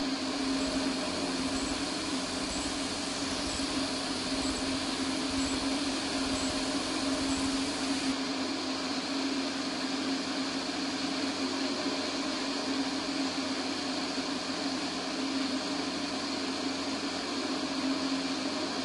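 Small light aircraft's engine and propeller droning steadily in cruise flight: a constant hum with one steady tone over a rushing hiss.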